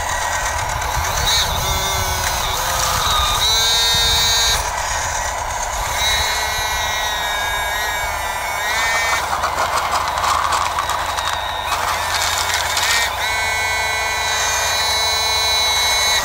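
Hydraulic pump and valves of a radio-controlled Bruder Cat 325D excavator converted to hydraulics, whining in rising and falling tones three times as the boom and bucket move, over a steady hum. Around the middle, the bucket scrapes gravel.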